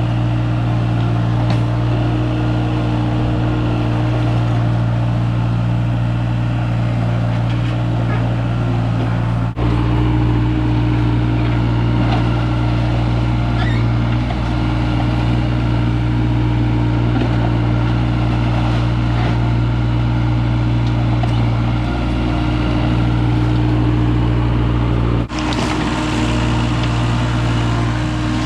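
An engine running steadily at a constant speed, briefly broken twice, about a third of the way in and near the end.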